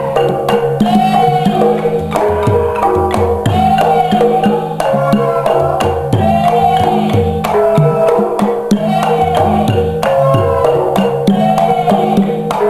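Traditional dance accompaniment music: drums and sharp wooden-sounding strikes over low held tones, with a wavering melodic phrase that comes round again every couple of seconds.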